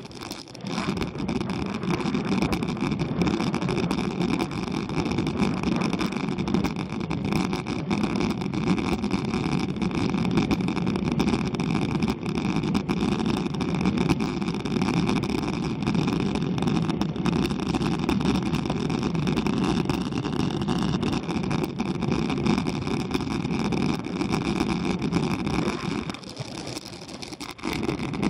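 Wind buffeting the microphone of a handlebar-mounted action camera, with tyre and road rumble from a road bike climbing at about 20 km/h. The noise is steady and dips briefly near the end.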